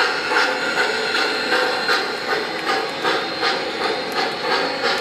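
O-gauge model passenger train rolling slowly on three-rail track, giving a steady, even clicking of about three clicks a second.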